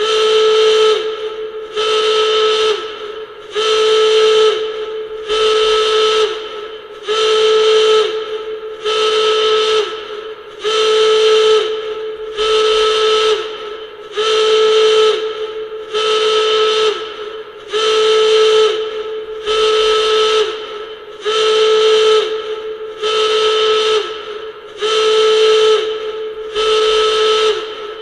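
Klaxon horn sounding in repeated blasts, about one every second and a half to two seconds. Each blast is a steady, harsh tone that starts suddenly and sags in pitch as it cuts off.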